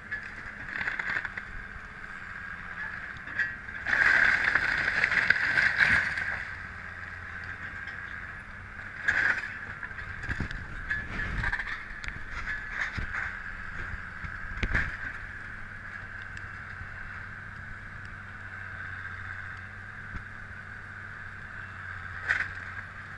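Link-Belt track excavator running with a steady engine drone and whine while it tears down a wooden house. About four seconds in, timber crashes and splinters for two seconds, followed later by scattered cracks and knocks of breaking boards and falling debris.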